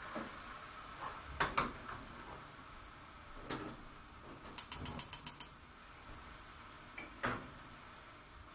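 A gas hob's burner being lit: the spark igniter clicks rapidly, about eight even clicks in under a second. Earlier, a stainless frying pan is set on the burner grate with a couple of sharp knocks, and a single knock comes near the end.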